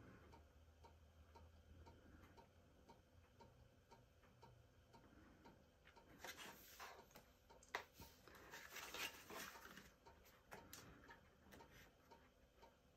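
Near silence with faint, even ticking, about three ticks a second. Around the middle there are a few seconds of rustling and a sharp click as the cardstock box base is handled and its glued flaps are pressed.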